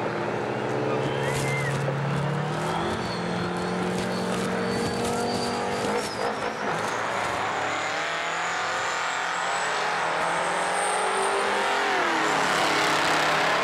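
A pickup truck and a semi-tractor truck run their engines at a drag-race start line, then accelerate together down the track. The engine noise climbs and gets louder, and the pitch drops as they go past about twelve seconds in.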